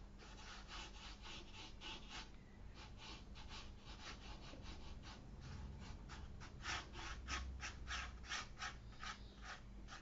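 Faint scratchy rubbing of a watercolour brush dragged in a quick run of short strokes across rough watercolour paper, skimming the top of the paper's grain to lay broken reflection strokes.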